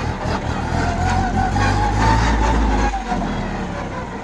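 Kubota A211N compact tractor's three-cylinder diesel engine running hard in third gear, its pitch rising and then falling back. The deep engine note drops away abruptly about three seconds in.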